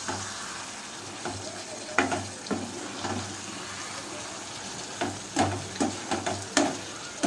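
Thick chicken masala curry sizzling in a pan while a spatula stirs it, with several scrapes of the spatula against the pan.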